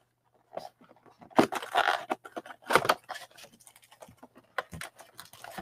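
Cardboard trading-card mega box being opened by hand: crinkling and rustling with sharp clicks as the box flap and the wrapped packs inside are handled, busiest in the middle.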